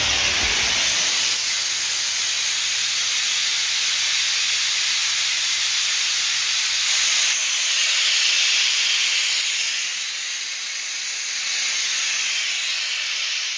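Compressed air blasting out of a Sanborn air compressor's tank through the opened drain valve and copper drain line: a loud, steady hiss that eases off near the end. The tank is being blown down to purge condensed water.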